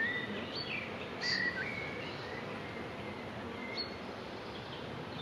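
Songbirds giving several short chirps and whistles over the steady hum of honeybees around an open hive.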